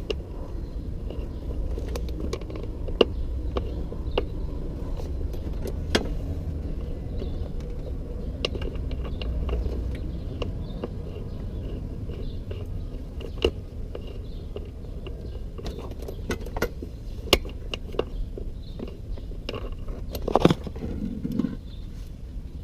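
Scattered metallic clicks and clinks of hand tools at irregular intervals, with a short cluster of knocks near the end, over a steady low rumble.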